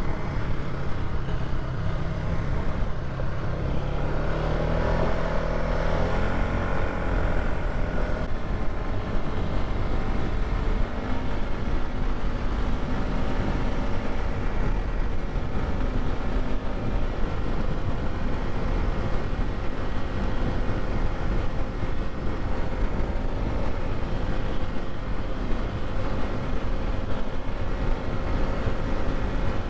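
Polaris ATV (quad) engine running steadily while the quad is ridden along a dirt trail, with a dense low rumble throughout. About four seconds in, the engine note rises and falls for a few seconds.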